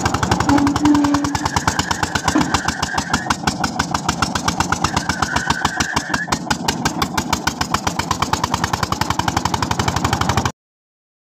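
Small single-cylinder diesel engine driving a tube-well drilling rig, running with a rapid, even chugging beat. The sound cuts off abruptly about a second before the end.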